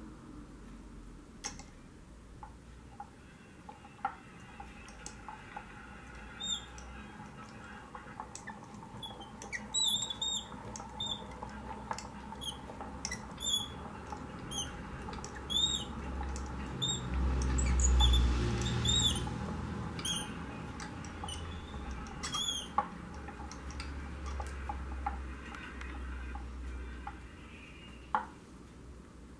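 Hand-cranked neodymium-magnet generator spinning up: a low rumble from the wheel and belt drive that grows and then falls away, with short high squeaks from the mechanism about once or twice a second while it is turned fastest. There are scattered light clicks, and one sharp knock near the end.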